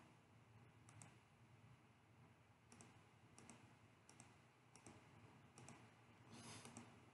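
Faint computer mouse clicks in a near-silent room: about six short double ticks (button press and release), spaced irregularly under a second or so apart.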